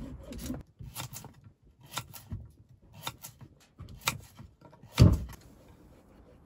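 Vegetable preparation on a wooden cutting board: a string of short scrapes and taps from peeling and cutting potatoes, with one much heavier thud about five seconds in.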